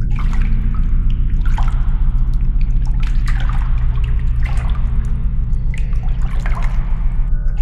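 Liquid pouring in a thin stream from a plastic jug and splattering onto the ground, swelling in irregular surges about every second or so, over a low steady drone.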